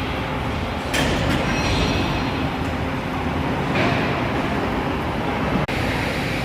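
Steady heavy mechanical rumble with a sharp clatter about a second in and another surge of harsher noise near four seconds, cutting out briefly near the end.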